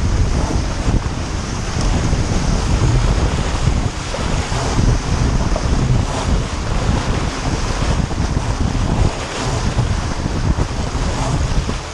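Wind buffeting the boat-mounted camera's microphone over the rushing hiss of spray and water along the hull of an RS400 dinghy sailing fast downwind under spinnaker. The sound is loud and unbroken, with an uneven low rumble from the gusts.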